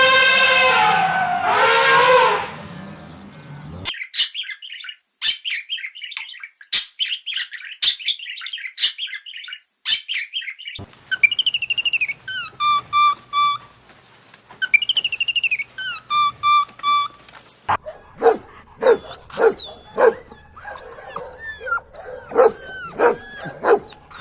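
A series of different animal calls: a long pitched call that drops in pitch at its end, then high rapid chirping, then repeated clear whistled bird calls, and near the end a quick run of short, sharp dog barks.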